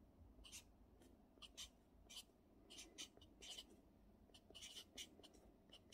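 Felt-tip marker writing on notebook paper: faint, short scratchy strokes, one after another, as characters are written by hand.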